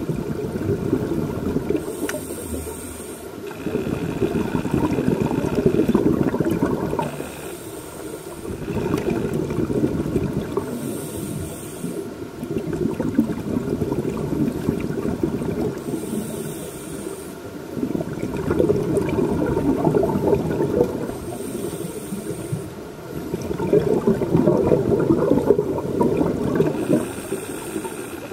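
Scuba diver breathing through a regulator underwater, about six breaths: each a short hissing inhalation followed by a longer bubbling exhalation as the exhaust bubbles stream out.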